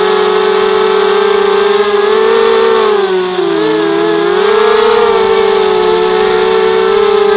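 A 250-size quadcopter's brushless motors (RCTimer 2300 kV) spinning 5x3 carbon propellers, a steady high whine. The pitch rises, dips and wobbles about three and a half seconds in, then rises again as the throttle changes.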